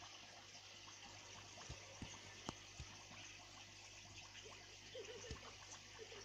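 Faint trickling water in an aquarium under a steady low hum, with several soft clicks between about one and a half and three seconds in and another just after five seconds.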